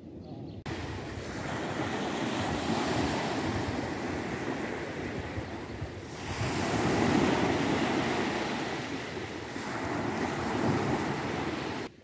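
Small Black Sea waves washing up a sandy shore, the surf swelling and drawing back in a few surges, loudest about seven seconds in. It starts suddenly just after the opening and cuts off just before the end.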